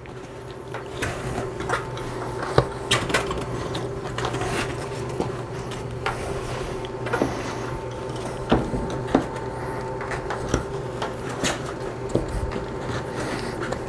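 Hands pushing a fat electric-bike tire's bead over the wheel rim: rubber rubbing and creaking with scattered knocks and taps, over a steady low hum.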